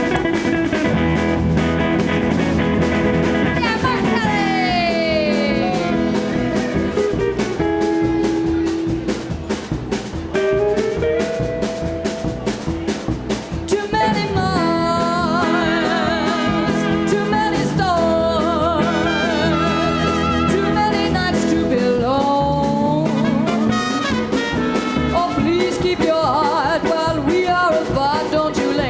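Live band music from a small swing-style combo: a lead line of sliding and wavering notes over bass and a steady drum-kit beat, easing off briefly about halfway through before the full band comes back in.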